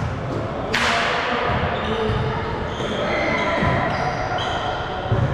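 A basketball bouncing on the court in irregular thuds during play, with short high squeaks and a sharp crash about a second in.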